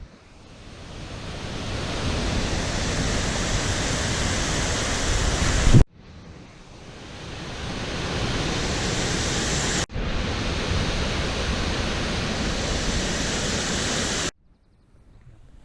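Steady roar of rushing floodwater from a swollen waterfall or beck, heard in three clips that fade in and cut off abruptly, with a quieter rustle of outdoor air after the last cut.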